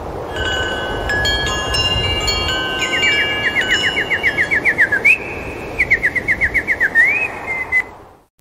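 Samsung Anycall SPH-S1100 nature-sound ringtone: a steady rushing background with clear ringing chime-like tones and bird-like chirps, including rapid trills and rising glides, fading out near the end.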